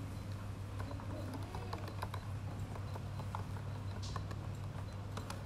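Typing on a laptop keyboard: irregular light key clicks, over a low steady hum.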